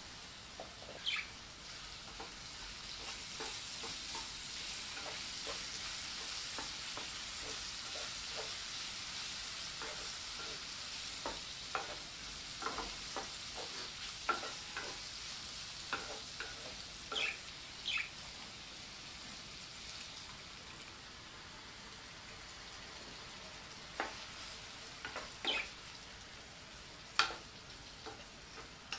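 Diced potatoes, carrots and salami sizzling in oil in a nonstick frying pan, a steady hiss. A wooden spoon stirs them, scraping and knocking against the pan in short irregular strokes, the loudest knock near the end.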